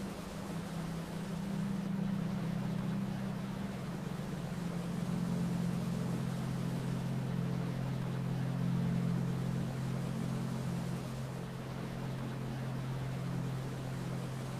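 Waterfall rushing steadily over a low ambient drone of held tones.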